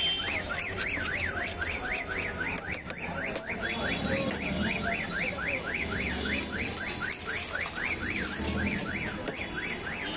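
An electronic alarm siren warbling continuously: a quick up-and-down sweep in pitch repeated about four times a second.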